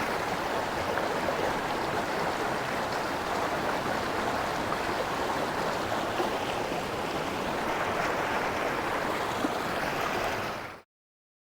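Steady rush of a swollen river flowing, a continuous even wash of water that fades out abruptly to dead silence near the end.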